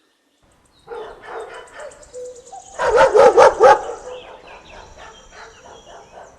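Dog barking: after a brief silence the barks begin, with a loud burst of about five quick barks about three seconds in and softer barking around it.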